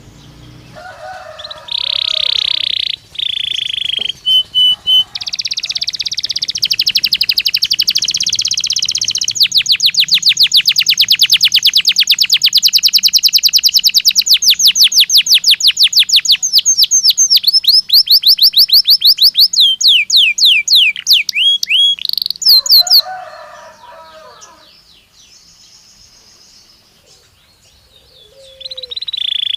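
Domestic canary (Belgian canary) singing a long, varied song: buzzy rolls, then a fast trill of rapidly repeated notes lasting about ten seconds, then sweeping notes. The song breaks off for a few seconds near the end and starts again.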